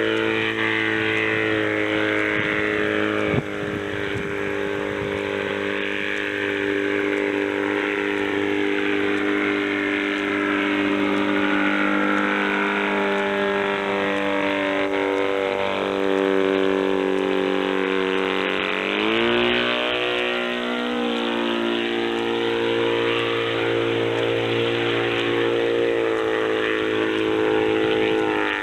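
Light autogyro's engine running in flight, a steady buzzing note that slowly falls in pitch and then climbs sharply about two-thirds of the way through. A brief click about three seconds in.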